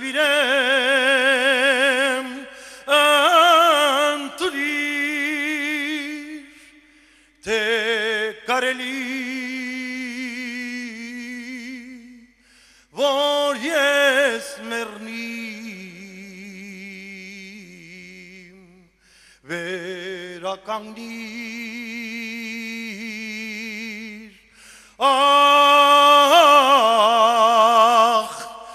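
A male singer sings an Armenian patriotic song solo. He sings long phrases with held, wide-vibrato notes, separated by short pauses in which no accompaniment is heard.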